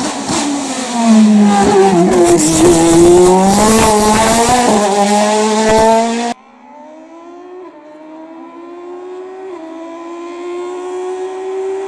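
Hillclimb race car engine at close range: the revs drop as it slows for a bend, then rise again as it accelerates hard. After an abrupt cut about six seconds in, a race car is heard farther off, revs climbing through upshifts every couple of seconds.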